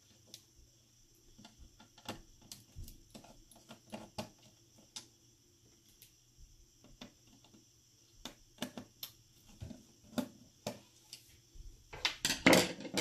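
Phillips screwdriver turning screws out of a TV power board: scattered small clicks and scrapes of metal on metal, over a faint steady hum. About twelve seconds in there is a louder burst of clattering clicks.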